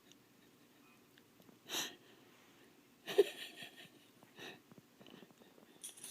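A few short, noisy breath sounds, like sniffs or a sneeze, with the loudest about three seconds in.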